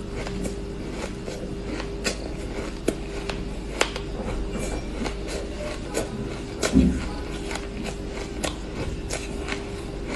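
Shaved ice being bitten and chewed: irregular sharp crunches, one louder crunch with a low thump about two-thirds of the way through, over a steady low hum.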